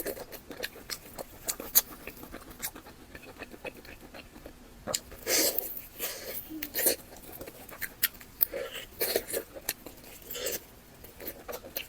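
Close-miked chewing of fatty pork belly: wet mouth clicks and smacks throughout, with louder spells of chewing about halfway through and again near the end.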